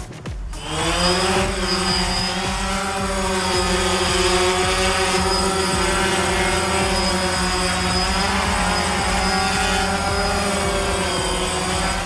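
DJI Phantom quadcopter's four brushless motors spinning up with a rising whine about half a second in, then a steady propeller buzz as it hovers.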